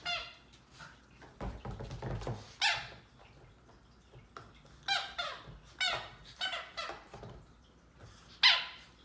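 Squeaky dog toy being chewed by a puppy: a string of short, irregular squeaks, the loudest near the end. Low thumps and rustling of the toy being knocked about come in between, a second or two in.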